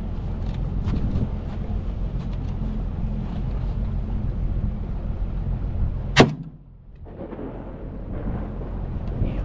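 Boat engine running steadily, with one sharp rifle shot about six seconds in, after which the sound drops away for about a second.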